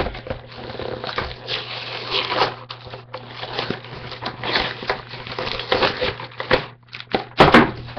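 Toy packaging crinkling and crunching as it is handled and pulled open, in irregular bursts, with a louder crunch near the end.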